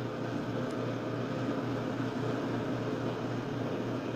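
Steady low mechanical hum under an even hiss, with a faint regular pulsing in the hum.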